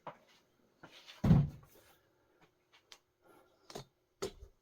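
A dull thud a little over a second in, then a few light knocks and clicks: the sound of things being set down and handled while the parts washer is being refilled with solvent.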